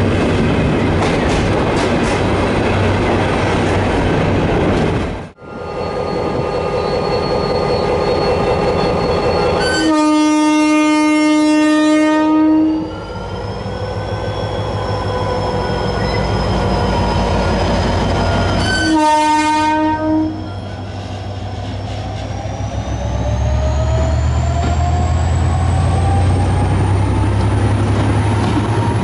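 Train running noise heard from on board, then a cut to a GM GT22 diesel locomotive pulling out: it sounds its air horn twice, first for about two and a half seconds and then briefly about nine seconds later. After the second blast the engine revs up with a rising tone and a deep rumble as the train gathers speed.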